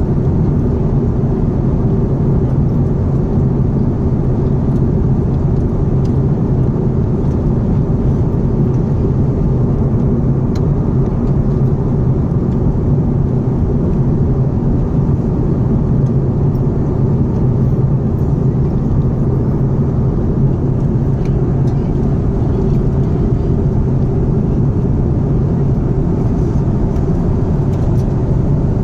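Steady low cabin noise of a jet airliner in flight: engine and airflow rumble heard from inside the passenger cabin.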